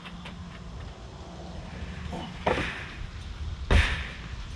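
Steel security door frame knocking against the door jamb as it is pushed into place, two knocks a little over a second apart, the second louder, over a low steady rumble.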